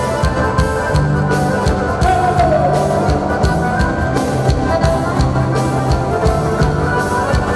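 Live band playing gaúcho music: several piano accordions together with an electric guitar, and a drum kit keeping a steady beat.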